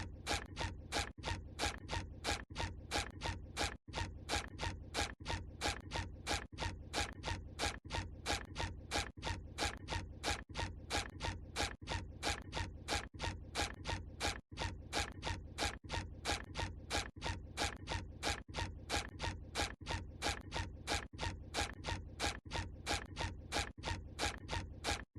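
SpongeBob SquarePants cartoon walking sound effect: a quick, evenly paced series of squeaky footsteps, about two to three steps a second.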